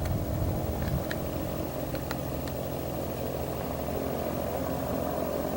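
A steady low engine hum with no change in pitch, and a few faint high ticks over it.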